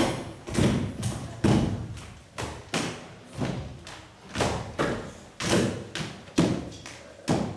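Folk dancers' feet stamping and landing on a stage floor in a kolo danced without music: heavy thuds, about one to two a second in an uneven rhythm.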